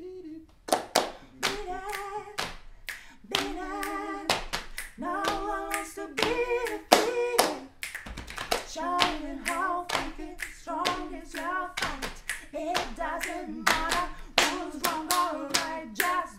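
A man singing a chorus melody while playing body percussion in a steady rhythm: slaps on the thighs and chest, finger snaps and hand claps cutting sharply through the voice.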